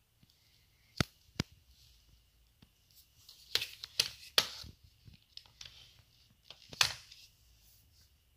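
Sharp clicks and knocks from a Kel-Tec CMR-30 carbine being handled on a wooden floor: one about a second in, a quick cluster around four seconds, and another near the end.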